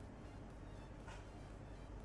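Faint background music under a low steady hum, with one brief faint sound about a second in.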